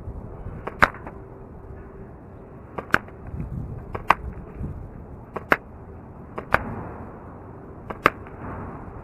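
Red Jacket CO2 airsoft pistol firing six single shots, each a sharp pop, spaced unevenly about one to one and a half seconds apart as the magazine is emptied. Some shots have a fainter click just before them.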